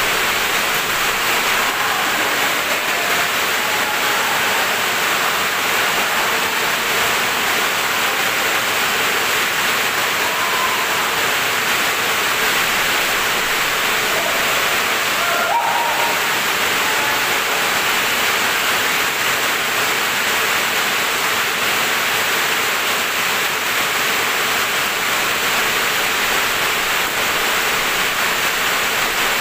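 A steady, loud rushing noise with no rhythm or change in level.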